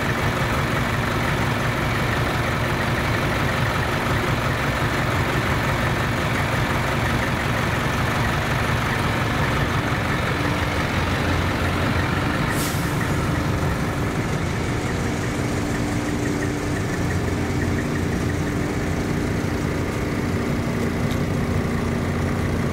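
Large diesel truck engines idling steadily, a continuous low hum. About halfway through there is a sudden click where the sound changes abruptly.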